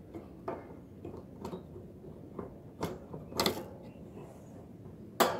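Irregular clicks and knocks from a wire birdcage as a goldfinch × canary hybrid moves about on its wooden perch, with the loudest knock near the end. The bird is not singing.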